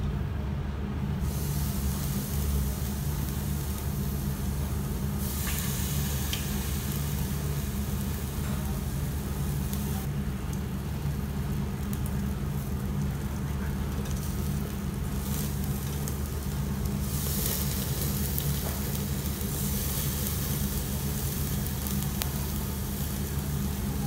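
Slices of kalbi beef sizzling on the wire mesh of a tabletop yakiniku grill. The sizzle starts about a second in and swells twice, over a steady low hum.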